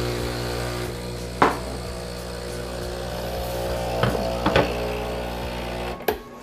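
Breville espresso machine's vibratory pump humming steadily as it pushes hot water through the empty group head into the drip tray to warm it, with three sharp clicks along the way. The pump cuts off about six seconds in when the button is pressed.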